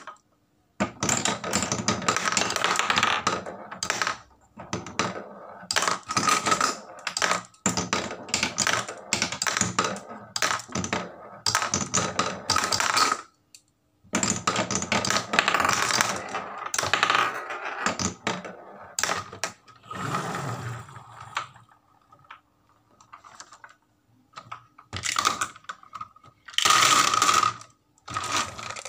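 Marbles rolling down a wooden marble run and clattering into a wooden collection tray, clicking against the wood and one another in bursts of rapid clicks with short gaps between them.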